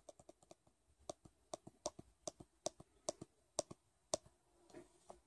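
Faint clicks from the plastic button of an Easy@Home wrist blood pressure monitor, pressed over and over at a few clicks a second. Each press steps the date setting up by one day.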